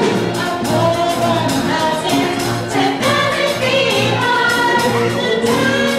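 Ensemble of voices singing a show tune with live band accompaniment, over a steady pulsing beat.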